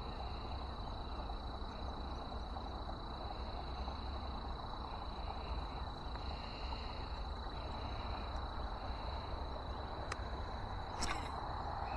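Steady outdoor background of even hiss, with a thin constant high-pitched tone and faint pulsing calls about once a second, typical of insects.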